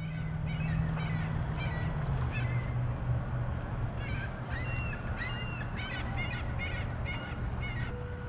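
Birds calling over and over, short high calls about twice a second, over the steady low hum of a boat motor running on the water.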